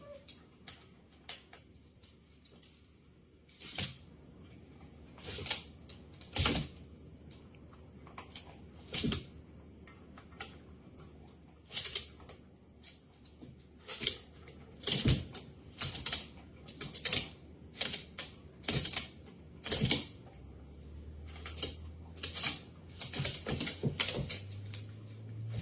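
Irregular clicks and taps, some in quick clusters of two or three, scattered throughout and coming more often in the second half.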